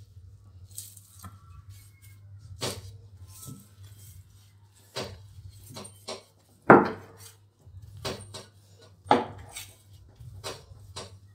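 A rolling pin working dough under plastic wrap on a silicone mat: irregular knocks and crinkling rustles, the loudest knock about two-thirds of the way in, over a low steady hum.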